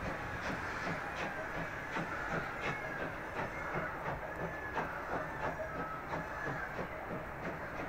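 Prussian P8 steam locomotive 38 2267 hauling a passenger train past at a distance: regular exhaust beats about twice a second over the steady rumble of the coaches on the rails.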